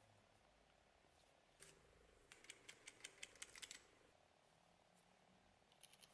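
Knife being slid into its leather sheath: a faint rustle, then a quick run of about ten light clicks in just over a second, and a few more clicks near the end.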